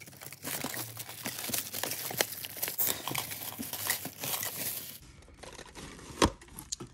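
Plastic shrink wrap being torn and pulled off a cardboard box, crinkling for about five seconds. It then goes quieter, with a single sharp knock about six seconds in.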